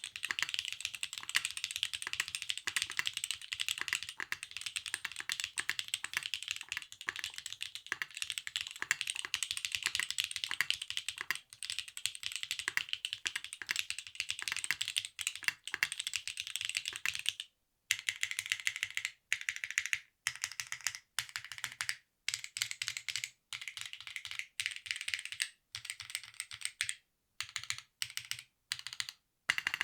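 Fast typing on a Stratum-80 mechanical keyboard with Kailh Calligraphy switches on an aluminum plate, no foam inside. It is a steady rapid stream of key clicks for more than half the time, then bursts of typing with short pauses between them.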